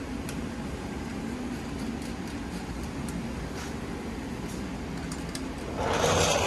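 Steady low hum of shop background noise with a few faint clicks of tools. A louder, short noisy burst comes near the end.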